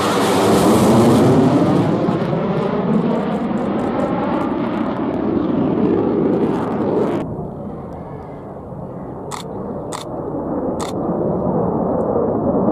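Jet roar of a JF-17 Thunder fighter's single Klimov RD-93 turbofan as it passes, with a swirling, sweeping tone. About seven seconds in the loud roar cuts off abruptly to a quieter, more distant roar, over which three sharp cracks sound about half a second to a second apart.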